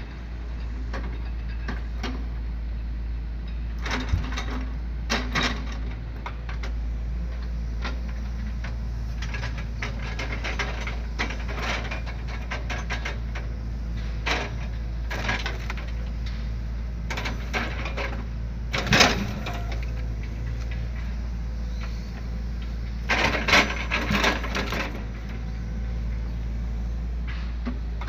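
Excavator engine running with a steady low drone while its grapple handles logs, with repeated bursts of wooden knocking and clattering as logs are gripped and set down; the loudest knocks come about two-thirds of the way through.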